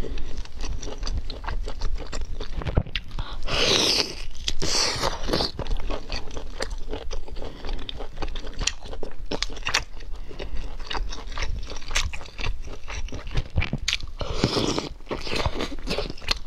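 Close-up sound of a person biting and chewing food dipped in chili oil: many wet mouth clicks and smacks. There are two longer, breathier stretches, one about four seconds in and one near the end.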